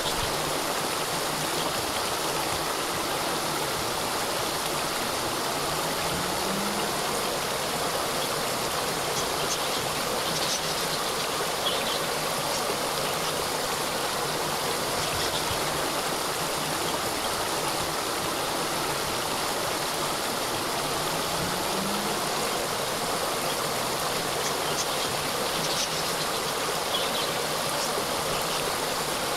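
Small waterfall: a steady, even rush of falling water.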